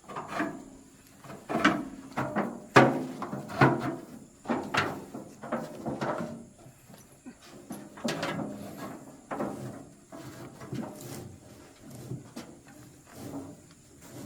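A string of irregular knocks and thumps, loudest about three seconds in and sparser toward the end.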